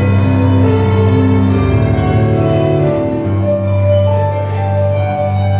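Live acoustic band playing: bowed violin and keyboard over a low, sustained bass line.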